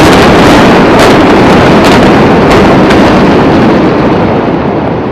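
Loud, dense rumble of a building coming down in a demolition implosion, with a few sharp cracks in the first three seconds. It eases off after about four seconds.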